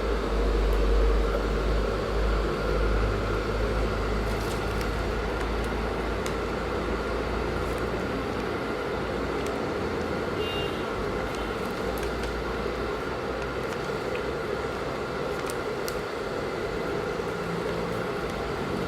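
Small computer cooling fan, run off a 5 V phone charger in a homemade box air cooler, running steadily with a hum. For roughly the first half its airflow buffets the microphone with a low rumble.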